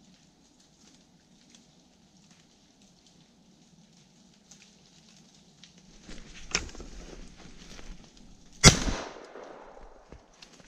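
A single shotgun shot about nine seconds in, sharp and followed by a short echo through the woods. A couple of seconds before it there is rustling of movement through snow and leaf litter and a smaller sharp crack.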